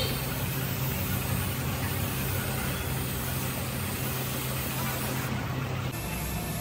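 Compressed-air gravity-feed spray gun hissing steadily as it sprays paint, over a steady low hum. The sound changes abruptly near the end.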